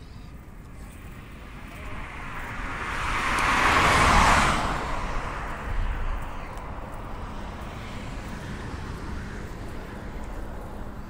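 A road vehicle passing close by. Its engine and tyre noise swell over about two seconds, peak about four seconds in, then fade by about six seconds.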